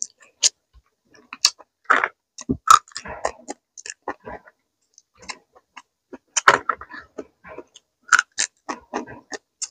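Close-up eating sounds: irregular wet smacks, clicks and crunches of chewing a Thai papaya salad with raw crab and shrimp, and of sucking the dressing off the fingers.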